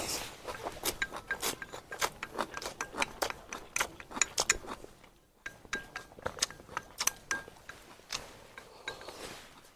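Eating utensils clicking and clinking against bowls and dishes during a meal, in quick irregular taps, with a brief pause a little past halfway.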